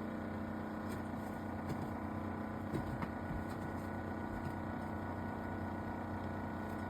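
Old refrigerator, over 20 years in use, running with a loud, steady hum made of several steady tones. It is an abnormal noise from a fridge that no longer cools, which the owner takes for a failing compressor.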